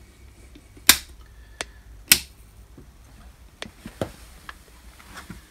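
Two sharp clicks about a second apart, from a mains wall-socket rocker switch being flicked, followed by a few fainter clicks and taps, over a faint low hum.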